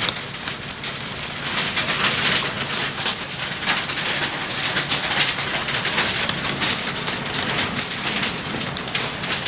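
Hail and heavy rain drumming on a car's roof and windshield, heard from inside the cabin: a dense, unbroken patter of sharp hits.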